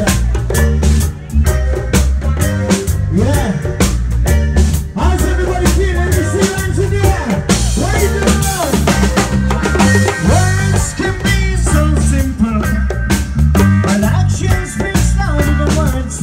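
Live reggae band playing loudly through a PA, with a heavy bass line, a drum kit keeping a steady beat, keyboard, and a singer's voice over it.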